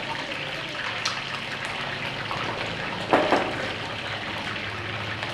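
Parboiled chicken wings deep-frying in hot oil: a steady bubbling sizzle, with one brief louder burst about three seconds in.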